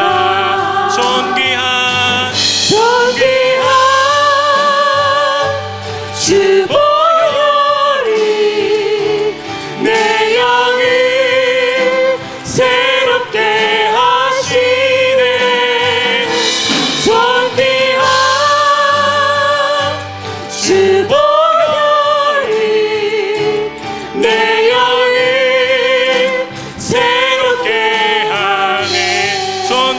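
Church praise team of mixed male and female voices singing a Korean worship song in harmony through microphones, with acoustic guitar accompaniment. The singing goes on in long held phrases with short breaths between them.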